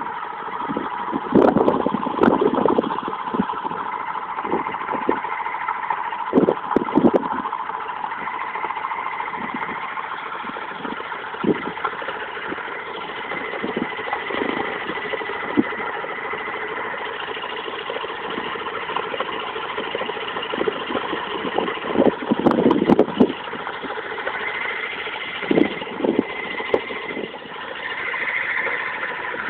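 Mazda RX-8's two-rotor rotary engine running at a steady speed, with irregular sharp knocks over it, bunched in clusters at several points. The owner calls it a knocking noise but is unsure of the cause.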